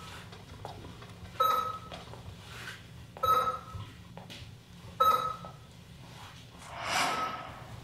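Hospital bedside patient monitor beeping: a short pitched beep with a brief fading tail about every two seconds, three times. Near the end a soft whoosh swells and fades for about a second.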